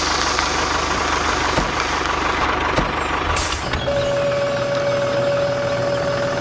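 Small motor of a mini tractor running steadily with a noisy rumble; a steady high tone comes in about four seconds in.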